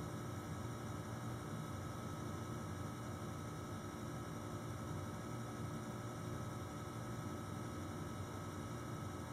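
Steady low electrical hum with faint hiss, unchanging throughout; the slow pour of soap batter makes no distinct sound over it.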